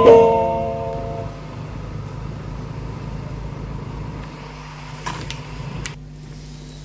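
The held closing chord of a devotional song dies away over the first second. A low, steady background rumble with a faint hum follows, with two faint clicks near the end.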